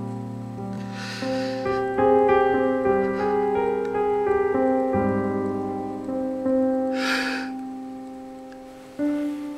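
Slow piano music with held, overlapping notes. Over it a man is crying, and he draws two short, noisy breaths: one about a second in and a louder one about seven seconds in.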